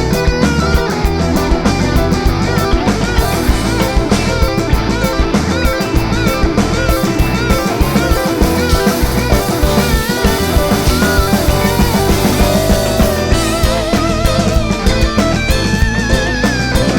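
Rock band playing live in an instrumental passage with no singing: electric guitar lines with wavering, bent held notes over bass and a steady drum kit beat.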